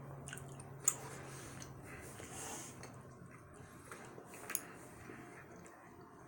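Faint, slow chewing of thick gummy candy, with a couple of short sharp mouth clicks.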